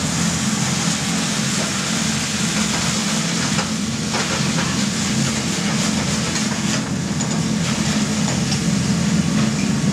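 Wine sizzling loudly in a hot sauté pan over a gas flame, a steady hiss as the liquid boils off and the pan flares, with a few light clinks of metal utensils against the pan. A steady low hum runs underneath.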